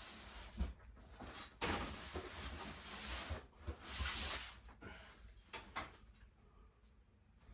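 Boxes and toys being handled and moved: a couple of sharp knocks in the first two seconds, then bursts of rustling, growing quieter after about five seconds.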